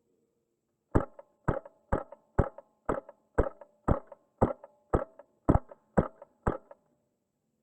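Wolverine MTW HPA airsoft rifle firing about a dozen semi-automatic shots, roughly two a second, each a sharp pop with a short ringing tail.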